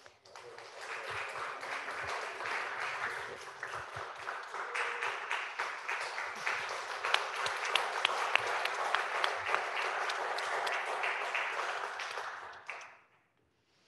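A congregation applauding. The clapping swells over the first second, keeps up for about twelve seconds and dies away near the end.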